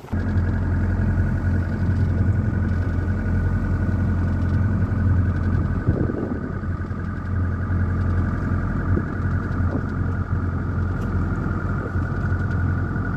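Boat engine running steadily at a constant speed, with a deep hum and a higher whine above it.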